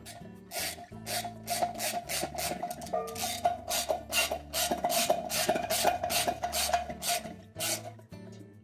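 Socket ratchet on an extension running bolts into a washer's metal tub support cover: a quick run of short rasping ratchet strokes, about two to three a second, with the metal cover ringing under them.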